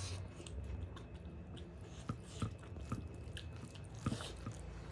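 Close-miked chewing and wet mouth sounds of eating rice and egg curry by hand, with scattered soft clicks and smacks. The loudest come about two seconds in and about four seconds in.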